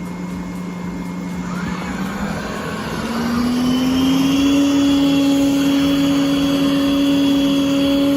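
Yeedi robot vacuum running as it starts cleaning a carpet: its motor hum rises in pitch and gets louder about two to four seconds in, then settles into a steady hum with a higher whine.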